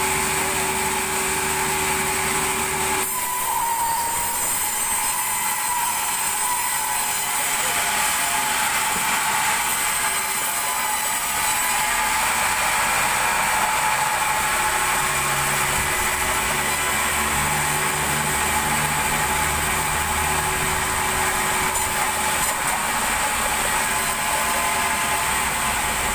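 Vertical band sawmill cutting lengthwise through a large log: a steady high whine over a hiss from the running blade. The low hum underneath changes about three seconds in.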